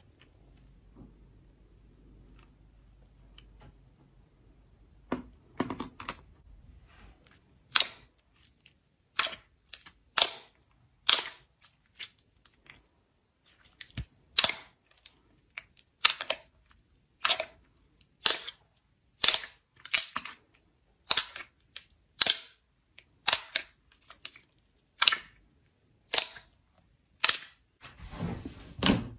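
Slime being pressed and squeezed, popping trapped air pockets: sharp, wet pops at about one a second, faint at first, then loud and regular from a few seconds in.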